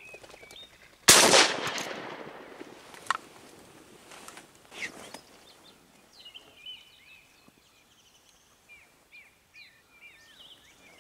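A single shotgun shot about a second in, its echo fading away over the next second or so: the shot that downs a drake flushed off the marsh. Small birds chirp faintly afterwards.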